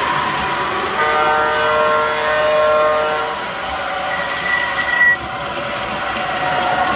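O scale model train's onboard sound system blowing a chime whistle, a chord of several tones held for about two and a half seconds, over the steady running noise of the trains. A single higher tone sounds briefly about four seconds in.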